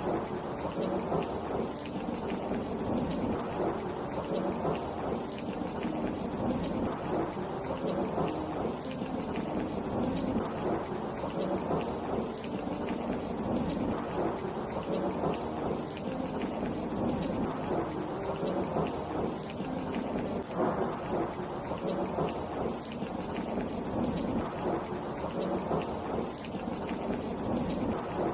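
Steady heavy rain falling in a forest, an even continuous hiss with a deep rumble underneath and no distinct claps.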